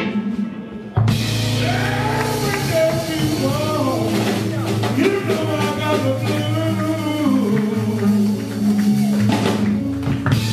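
Live blues band with electric guitars, bass and drums and a man singing. The band drops out briefly at the start and comes back in fully about a second in.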